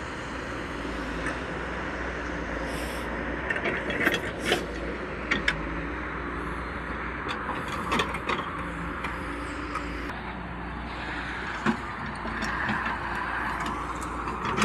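A vehicle running steadily, with several sharp clanks and knocks over it.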